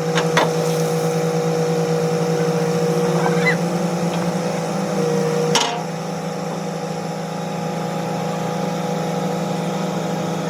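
Steady hum of a running machine with a low note and a higher whine over it. There is a sharp click about half a second in and a louder knock about five and a half seconds in, after which the higher whine drops away.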